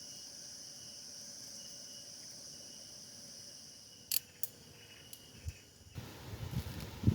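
Steady high-pitched insect chorus, with a few sharp clicks about four seconds in. About six seconds in the chorus cuts off abruptly and a low rumble takes over.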